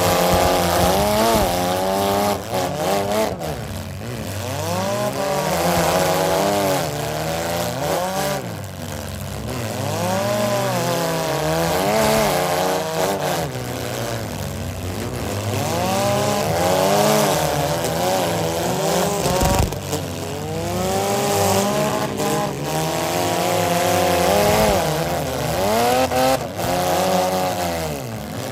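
Several economy compact demolition derby cars revving their engines up and down over and over as they push against each other, with a few sharp bangs of impacts along the way.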